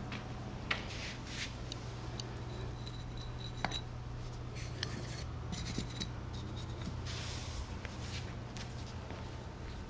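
Upside-down glazed ceramic flower pots being moved by hand and set down on a board, giving scattered light clinks, knocks and scrapes over a steady low hum.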